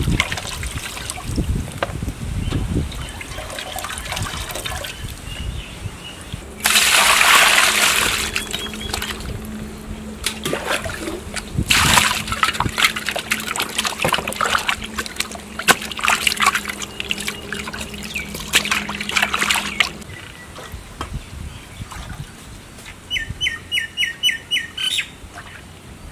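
Water splashing and trickling, with a loud rush of water lasting about a second and a half, then a stretch of crackling splashes. Near the end a bird calls a quick run of about eight chirps.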